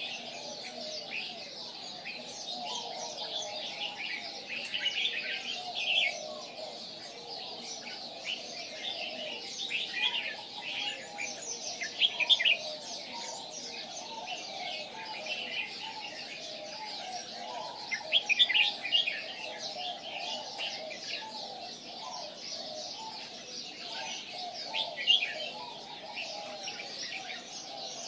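Songbirds chirping and calling without a break, with louder bursts of high, rapid chirps every few seconds and a lower warbling chatter running underneath.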